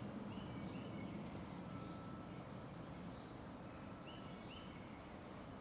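Small songbirds chirping faintly over steady outdoor background noise: short paired notes about a second in and again near the end, with a higher, trilled note after each.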